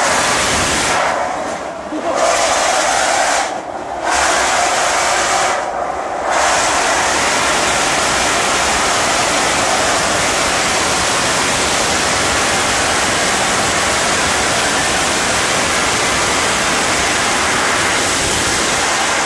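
Steam rocket of a beer-fuelled rocket motorcycle firing: a loud, steady hiss of steam jetting from the rear nozzle, with the beer heated under pressure in the tank and turned into steam. The thrust briefly dips three times in the first six seconds, then holds steady.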